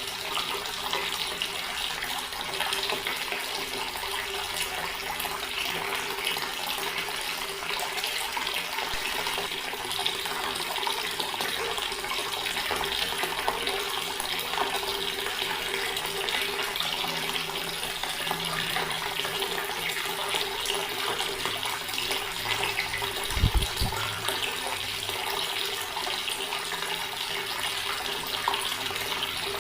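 Water running from a tap and splashing steadily into a stone basin. A brief low thump sounds about two-thirds of the way through.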